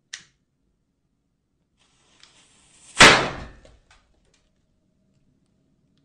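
A firecracker going off: a short fizzing hiss, then one loud sharp bang about halfway through that dies away within a second, with a few small crackles after.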